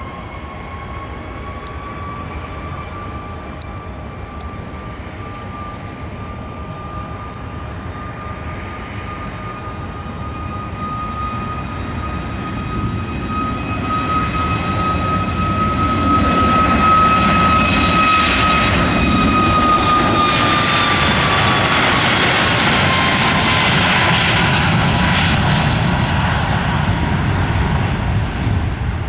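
Boeing 737 MAX 8-200's CFM LEAP-1B turbofans at takeoff power on the takeoff roll. A steady fan whine rises slightly as the engines spool up. The roar then builds as the jet accelerates down the runway, loudest in the second half, and the whine drops in pitch as it passes.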